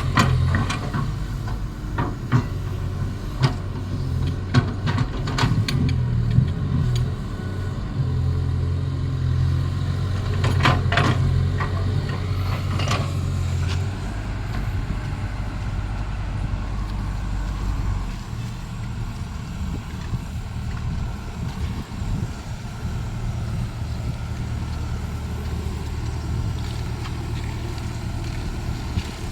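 Caterpillar excavator's diesel engine running steadily, with a few sharp knocks in the first half. The engine note drops about halfway through.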